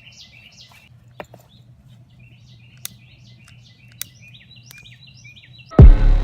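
Small birds chirping in quick repeated short notes over a faint low hum, with a few sharp clicks. Near the end, loud hip hop music cuts in abruptly.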